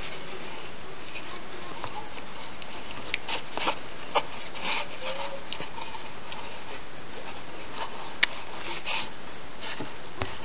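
Wild boar piglet moving and rooting in the blankets and straw of its cage: scattered short rustles and a few small clicks over a steady hiss.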